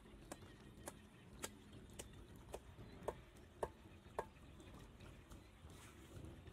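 Sharp, evenly spaced knocks or taps, a little under two a second, loudest a little past the middle and fading away near the end.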